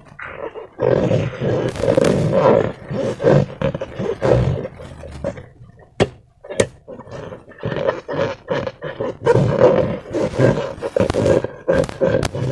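Slime being squeezed and worked by hand, making irregular squelching, air-pocket noises, with two sharp clicks about six seconds in.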